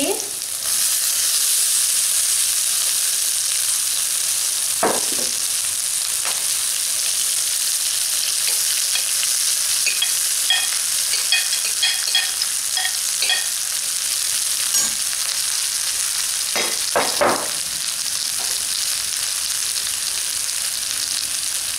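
Oil sizzling steadily in a kadhai of frying onions and soya chunks as cooked basmati rice goes in. A few short clinks and scrapes of a slotted steel spoon against the pan are heard, one near a quarter of the way in, a cluster near the middle, and a pair about three-quarters through.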